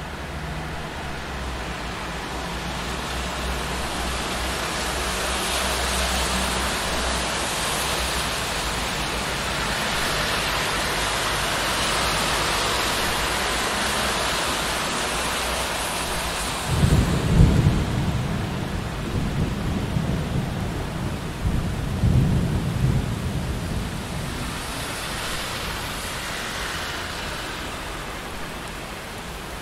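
Steady rain with the hiss of cars passing on a wet street, swelling and fading every several seconds. A little past the middle come two rough bursts of low rumbling a few seconds apart.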